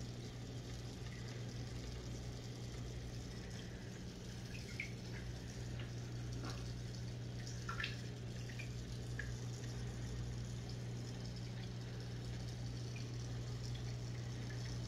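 Steady low hum of the quarantine aquarium's running equipment, with faint water trickling and a few small drips or taps scattered through the middle.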